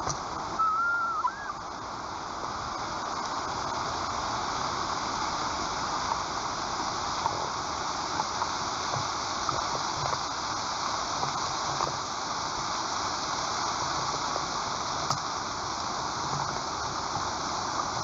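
Steady rushing outdoor noise at a white-tailed eagle nest, with one short high whistled bird call that rises and falls about half a second in.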